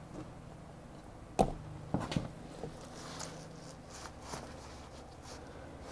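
Quiet handling noises from working a heated tire-grooving iron in a tractor tire's rubber tread: a sharp knock about a second and a half in, a few clicks just after, then light rubbing and scraping. A faint low hum runs underneath.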